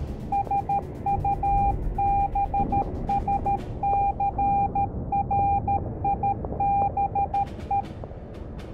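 Morse code: a single steady beep tone keyed in short and long beeps (dots and dashes), spelling out a message, over a low background rumble. The beeping stops about a second before the end.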